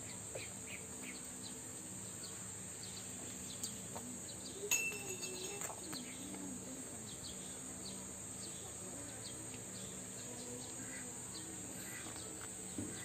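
Steady high-pitched insect drone with scattered short bird chirps, and a few sharp clicks about five seconds in.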